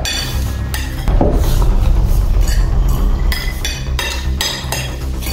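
Metal forks clinking and scraping against plates as several people eat noodles quickly, in a run of irregular sharp clicks over a low steady rumble.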